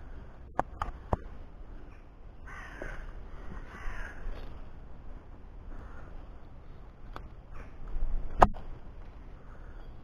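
A crow cawing, harsh calls a couple of seconds in, among sharp plastic clicks and knocks from handling a trail camera strapped to a tree: three quick clicks near the start and one loud click near the end.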